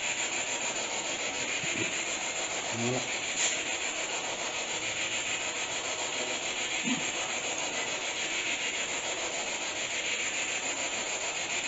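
Steady, even hiss like static, with a few faint, brief low sounds under it.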